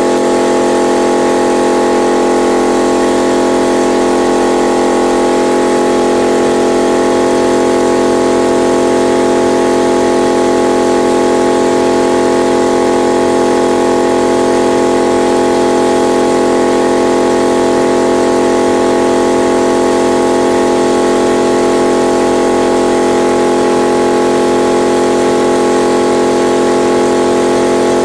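Yamaha TDM 850 parallel-twin engine running at a steady idle, its reassembled valvetrain and timing chain turning with an even, unchanging note.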